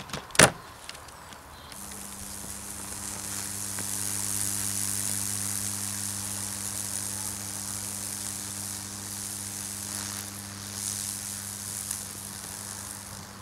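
A sharp click just after the start. From about two seconds in, a microwave oven transformer hums steadily at high voltage while its current burns Lichtenberg figures through baking-soda-soaked plywood, over a constant hiss and crackle of the wood charring and arcing.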